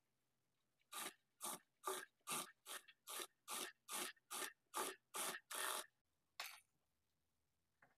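A regular run of short scraping strokes on cloth, about two a second, from the blouse's neck facing being stitched; they stop about six seconds in, with one last stroke just after.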